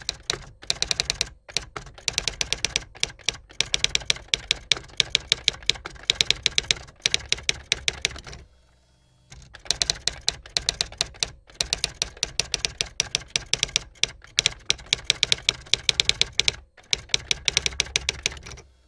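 Typewriter keys clattering in rapid runs of strikes, broken by short pauses, with a longer break of about a second near the middle.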